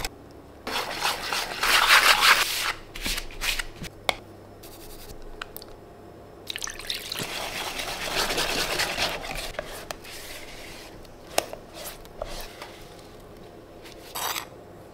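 Liquid poured into a mixing bowl of dry ingredients, then a wire whisk beating cake batter in the bowl, with scattered clicks of utensils against the bowl. Near the end comes a brief scrape of a spatula spreading batter in a metal baking tin.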